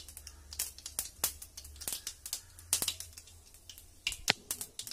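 Mustard seeds popping in hot oil in an aluminium kadai: irregular sharp cracks and ticks, several a second, as the seeds splutter, the sign that the oil is hot enough for tempering.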